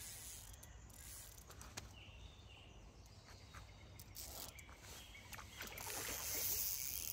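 Faint outdoor ambience with a steady low rumble and a few faint clicks. A soft hiss builds from about five seconds in.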